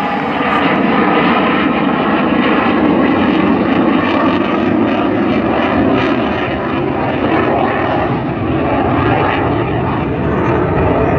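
JF-17 Thunder fighter jet in flight, its single RD-93 turbofan engine loud and steady, swelling slightly about a second in.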